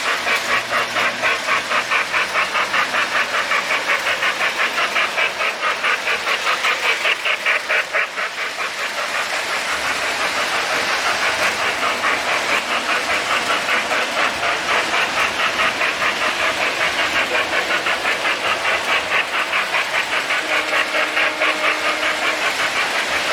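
Model trains running on a home layout, with a rapid, even chugging beat of about four pulses a second that eases briefly and picks up again.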